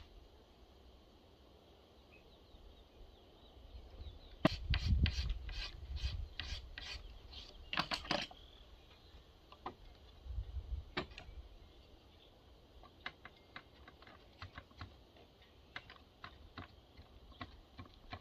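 Hand rasp or file scraping the red elm axe handle, taking wood off to fit the axe head. A quick run of about ten strokes comes about four seconds in, followed by scattered lighter strokes.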